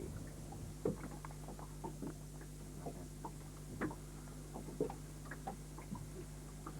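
Irregular light knocks and ticks, a few a second and unevenly spaced, aboard a small boat at sea, over a steady low hum.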